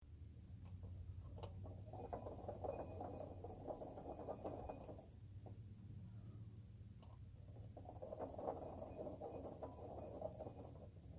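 Hand ratchet clicking in two bouts as it backs out the water pump pulley bolts on a Hummer H3.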